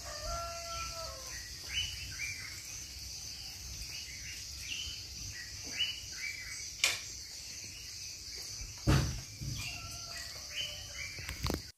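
Birds chirping in short repeated calls, with a few whistled notes at the start and near the end, over a faint steady insect buzz. A single dull thump sounds about nine seconds in.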